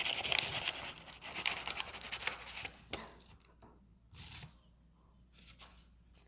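Crinkling and tearing noises, dense for about the first three seconds, then dying away to a few scattered small scratches.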